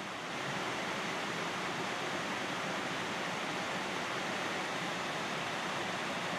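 Rushing water of a mountain trout stream with waterfalls, a steady, even hiss.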